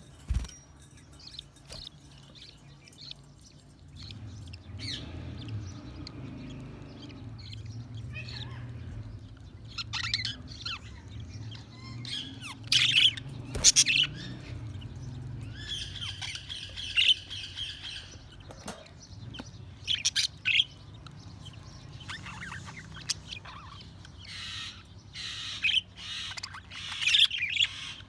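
Budgerigars chirping and squawking in short, irregular bursts, with one longer warbling call partway through. A low steady hum runs underneath for much of the time.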